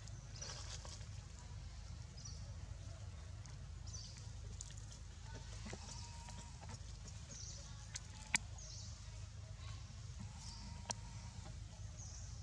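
Faint outdoor ambience: a steady low hum with short, high chirps every second or two. A sharp click about eight seconds in is the loudest sound, and a smaller one follows near eleven seconds.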